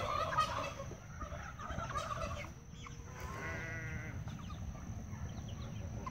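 Flock of young meat chickens clucking and peeping while foraging, with short scattered calls and one longer drawn-out call about three seconds in.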